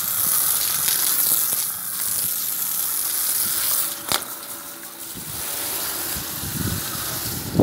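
Running water splashing onto wet patio tiles, a steady hiss that drops away after a click about four seconds in.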